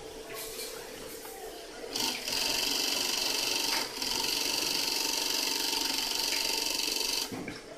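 Short-arm double-needle industrial sewing machine stitching at speed. It starts about two seconds in, drops out briefly near the middle, and stops shortly before the end, with only a faint steady hum before and after.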